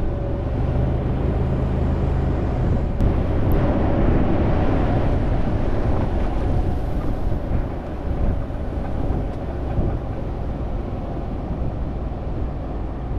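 1996 Ford Bronco's V8 being driven, a steady mix of engine and road noise.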